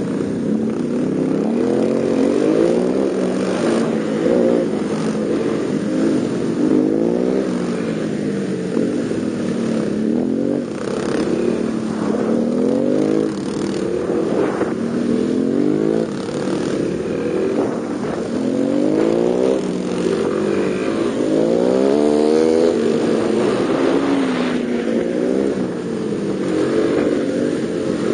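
Yamaha Serow 225WE's single-cylinder four-stroke engine, heard from on board, rising in pitch as it revs up and dropping back again and again while the bike is ridden through a riding-skills course.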